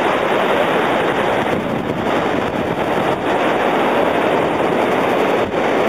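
Steady rushing noise of wind buffeting the microphone over the wash of small breaking waves, with no pauses or distinct sounds standing out.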